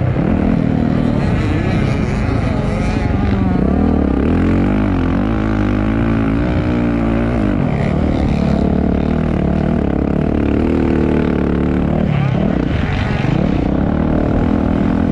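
Several motocross dirt bikes racing, their engines revving up and down with throttle and gear changes, several pitches overlapping and sweeping at once.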